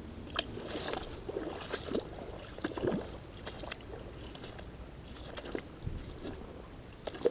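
Creek water splashing and sloshing, with irregular small splashes over a steady wash of moving water.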